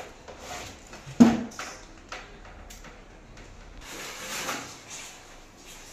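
Knocks, clicks and scraping of a Lloyd split AC's plastic indoor unit being pushed and hung onto its wall mounting plate, with one sharp loud knock about a second in and a longer scrape a little after the middle.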